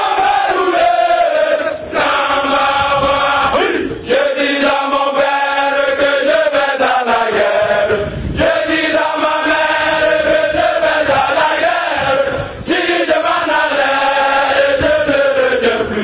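A large group of male military recruits chanting together in unison, in phrases of a few seconds with short breaks between them.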